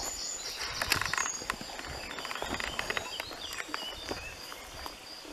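Footsteps brushing and crunching along a grassy woodland path, with birds chirping and singing around and a high, rapid pulsing call going on steadily.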